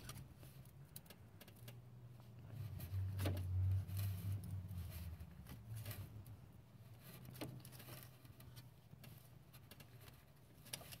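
Faint clinks and scrapes of a hand-held oil filter wrench working against a stuck oil filter that is not yet loose, over a low rumble that is loudest for a couple of seconds about three seconds in.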